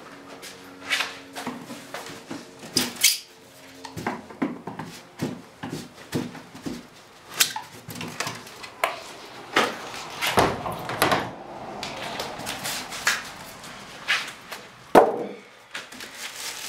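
Packing and handling noise: irregular knocks, clunks and scrapes of compressor parts being pried and pulled out of cardboard packaging, with a sharp loud knock about fifteen seconds in.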